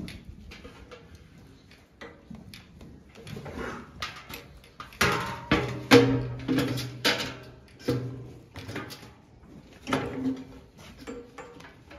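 Clicking and knocking of a bucket milking machine's stainless-steel teat cups and hoses as they are handled, with a low hum for a few seconds in the middle.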